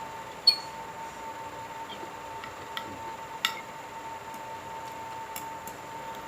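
A spoon clinking sharply on a plate about half a second in and again a few seconds later, with a few small ticks of utensils between, over a steady faint hum.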